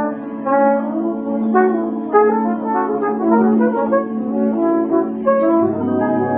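Live improvised music led by a trumpet playing a run of short notes over a held low note.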